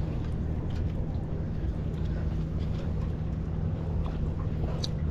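Steady low drone of a running engine, with a few faint clicks and taps over it.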